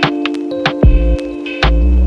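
Background music: short struck notes on a regular beat over held tones, with a deep bass note coming in near the end.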